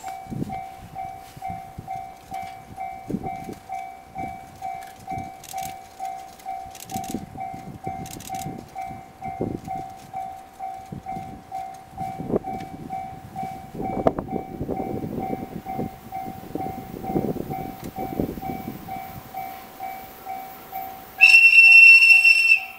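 Japanese level-crossing alarm ringing steadily at about two strikes a second while the Cassiopeia sleeper express passes, its wheels clattering over the rail joints and loudest in the middle. Near the end a train horn sounds loudly for about a second and a half.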